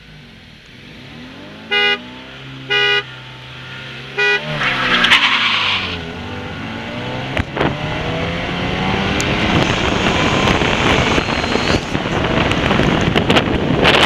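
Three short car-horn toots, then a D15-engined Honda wagon and a Mazda RX-8 accelerate hard side by side. Engine noise rises and grows louder, with wind rushing over the microphone as speed builds.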